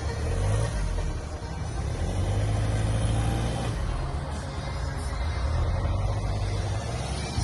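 Land Rover Freelander's engine running under load while the vehicle works off-road through a series of holes, its sound swelling and easing as the throttle changes.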